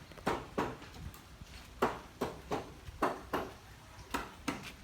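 A series of about ten sharp knocks, unevenly spaced and often in pairs.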